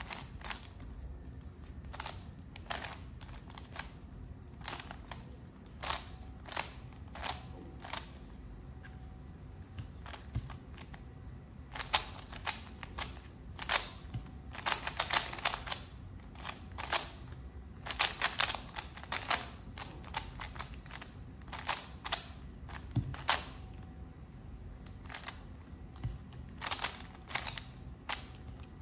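Stickerless 3x3 puzzle cube being turned by hand: sharp plastic clicks of its layers snapping round, in irregular runs of quick turns with short pauses between.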